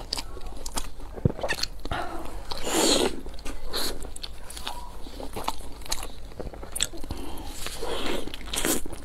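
Close-miked eating sounds: biting into and chewing a large pan-fried dumpling, many short wet mouth clicks with occasional crunches and a couple of louder bites, one about three seconds in and one near the end.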